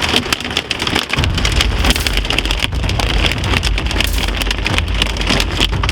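Hail pelting a car's roof and windshield in a dense, rapid patter. About a second in, a low rumble from the vehicle joins it.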